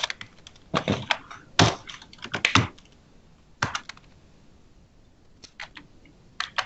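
Typing on a computer keyboard: short bursts of keystrokes with pauses between, and a longer lull past the middle.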